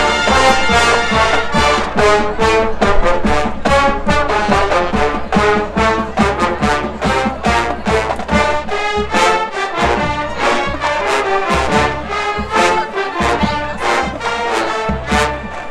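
Marching band playing live: brass carrying the melody over a steady beat of drum strokes.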